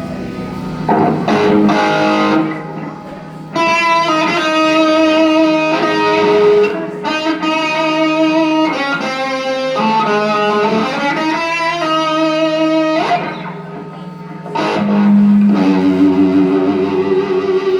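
Electric guitar being tested at a band's sound check: held single notes and short phrases with brief pauses between them, one note bent upward about two thirds of the way through.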